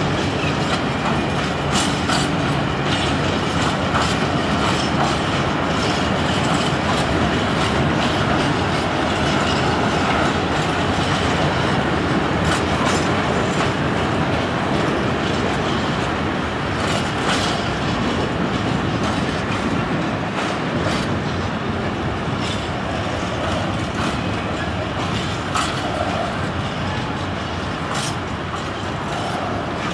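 Empty open coal wagons rolling slowly past on a shunting move, a steady rumble of wheels on rail with irregular clicks and clanks over the rail joints.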